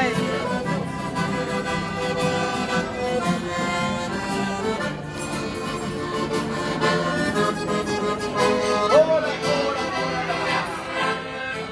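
Accordion music: a tune played continuously on an accordion.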